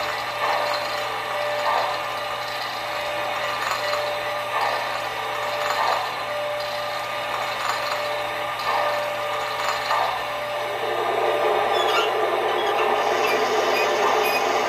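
O gauge operating crane car swinging its boom: a small motor and gears running with a grinding, ratchet-like sound and a steady hum. The sound grows fuller and louder near the end.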